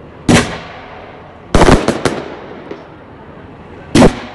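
Aerial firework shells bursting overhead in sharp bangs, each trailing off. There is a single bang about a third of a second in, then a quick cluster of three or four about a second and a half in, and another single bang near the end.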